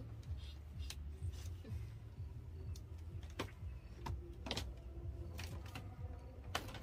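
Scattered light rustles and soft clicks of bedding being handled and tucked, over a low steady rumble.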